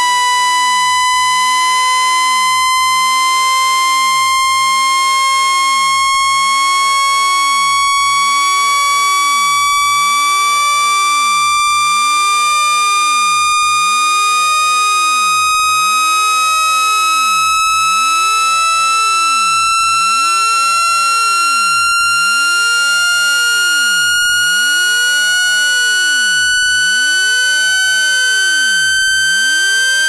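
Synthetic buzzy electronic tone gliding slowly and steadily upward in pitch, played to shake trapped water out of a phone's charging port, with faint ticks every couple of seconds.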